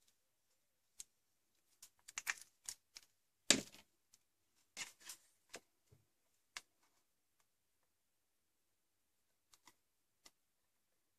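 Irregular clicks, taps and paper rustles as a card pennant is stuck with a tape-runner adhesive and pressed onto a paper gift pouch. The loudest is a single knock about three and a half seconds in, and the last few clicks come sparse near the end.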